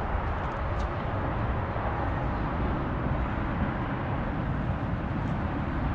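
Steady low rumbling background noise, with a faint click about a second in and another near the end.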